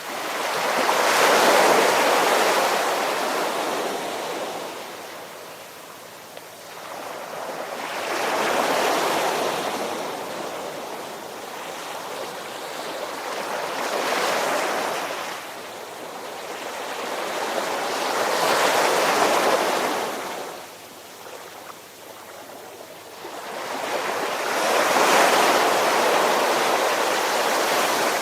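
Ocean surf: waves washing in with five slow swells of rushing noise, each rising and fading over several seconds.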